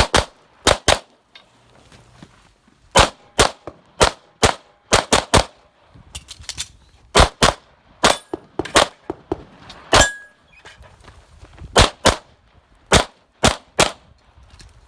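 Walther Q5 SF 9mm pistol firing a string of about twenty shots, mostly in quick pairs with short pauses between them, as a shooter works through an IDPA course of fire.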